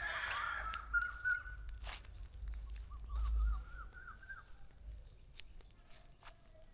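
Farmyard birds calling: a chicken's call trailing off at the start, a few short notes about a second in, then a quick run of short rising chirps from about three seconds in. A low rumble runs underneath.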